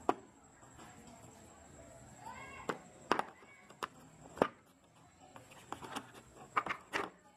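Hand tools handled against a moulded plastic tool case: a scattered series of sharp clicks and knocks, with a quick cluster of them near the end.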